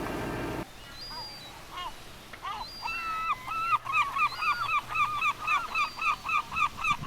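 A bird calling, after a low hum cuts off under a second in. It gives a few drawn-out notes, then a rapid run of short, repeated calls at about three a second.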